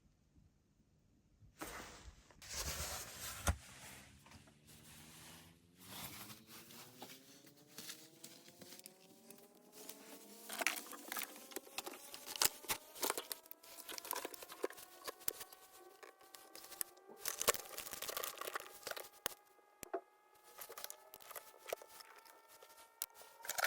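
Switch-mode power supply whine that glides slowly up in pitch and then levels off, the kind of switching noise the faulty supply makes. Crackles and scattered clicks run alongside it, starting with a sudden rush about a second and a half in.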